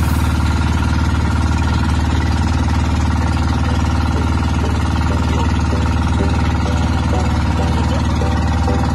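Engine of a motorized outrigger boat running steadily while under way, an even low hum with no change in speed.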